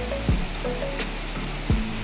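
Background music with a deep kick-drum beat and a short melodic riff, over the steady rush of flowing stream water.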